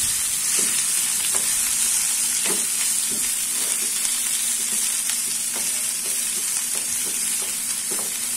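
Fresh mint and coriander leaves sizzling in hot oil in a nonstick pan while they are sautéed until wilted. A steady hiss runs throughout, broken by irregular soft scrapes and knocks as a wooden spatula tosses the leaves.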